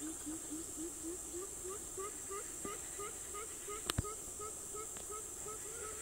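A coucal calling: a fast, even run of short, low hooting notes, about three a second. A steady high insect buzz runs underneath, and a single sharp click comes about four seconds in.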